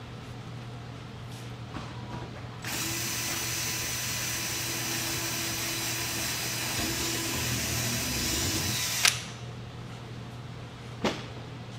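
Cordless drill running for about six seconds, drilling a small hole through the overlapping fiberglass cowling panels, with a steady whine. It stops with a sharp click, and a second click follows about two seconds later.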